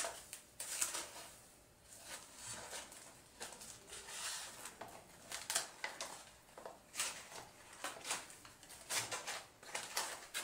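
A foam packing insert rubbing and scraping against a FIMI X8 Mini drone's body as the drone is pried out of it by hand, in irregular short scrapes and rustles.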